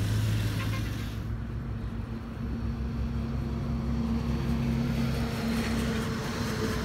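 A small engine runs with a steady drone throughout, its note shifting slightly about two seconds in. Water sloshes and splashes in the first second or so.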